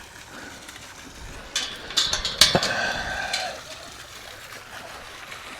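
A door being opened: a short run of clanks and knocks with a brief scrape, about one and a half seconds in, lasting about two seconds.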